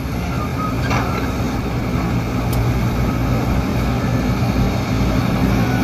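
Steady low rumble of heavy construction machinery's diesel engines running, growing a little louder in the first second and then holding level.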